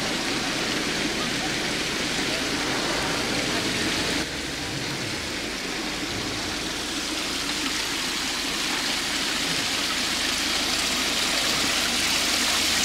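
Steady rush of running water, growing slowly louder toward the end, with water flowing over a tiled basin; there is an edit about four seconds in.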